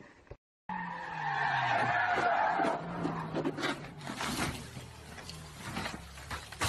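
A car's tyres skidding with a loud squeal for about two seconds while its engine note falls, then the engine running on with scattered sharp ticks.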